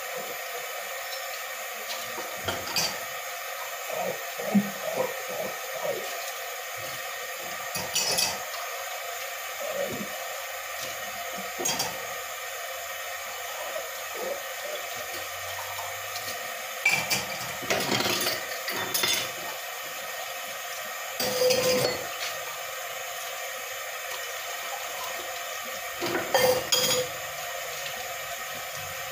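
Hand dish-washing at a kitchen sink: plates and cutlery clink and clatter in short bursts, several times, over a steady hiss of running water.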